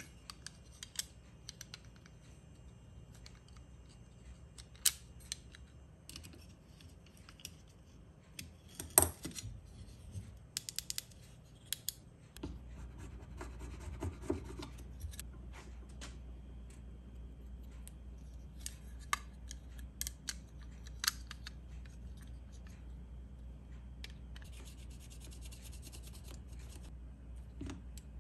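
Small plastic handling sounds of a circuit board being fitted into a black plastic project enclosure: scattered clicks and taps, then a flat hand file scraping the plastic case. A low steady hum comes in about halfway through.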